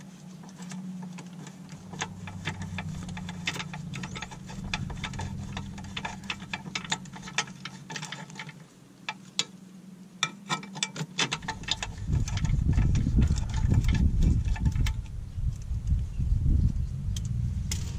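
Hand ratchet wrench clicking in quick runs as a bolt is worked loose under the car. From about twelve seconds in, a heavy low rumble covers it.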